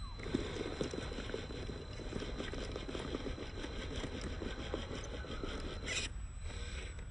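WPL C24 RC rock crawler's tyres scrabbling over loose dirt and small stones as it climbs, a dense run of scraping and crackling that ends about six seconds in with a short louder rasp.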